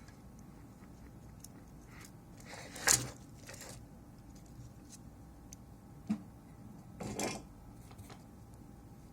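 Small parts and tools being handled on a workbench: a few brief scrapes and clicks over a faint steady background, the loudest about three seconds in and another about seven seconds in.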